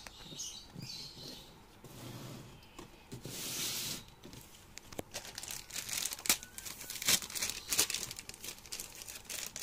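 Plastic packaging and cardboard rustling and crinkling as packing material is handled, with a run of sharp crackles and clicks in the second half.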